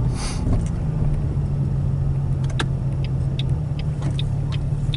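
Car cabin noise while driving slowly: a steady low engine and road hum, with a few light clicks from about halfway on.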